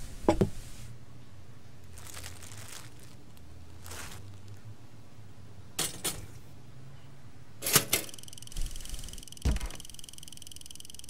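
Glass milk bottle set down on a countertop with a sharp clunk, then a few clicks and knocks as a pop-up toaster's lever is pushed down, the loudest click a little before the end. A faint steady high buzz follows as the toaster runs.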